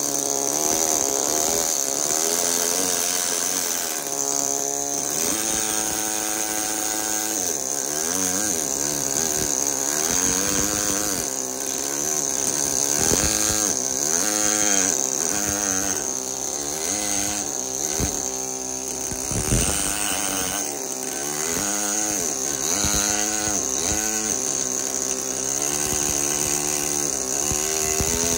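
Pneumatic carving hammer driving a chisel into marble: a continuous rapid buzz whose pitch wavers up and down.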